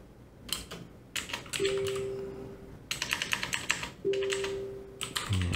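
Computer keyboard typing in short bursts of keystrokes. Between the bursts come two steady held tones, each about a second long.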